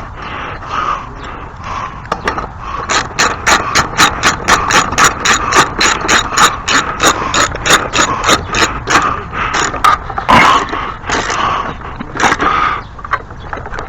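Ratchet wrench with a socket being worked back and forth, a quick even run of clicking strokes, about three to four a second, for several seconds, with a few scattered knocks before and after.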